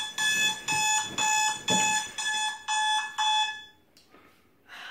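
Smartphone alarm going off: an electronic beep repeated about twice a second, cut off nearly four seconds in as it is switched off.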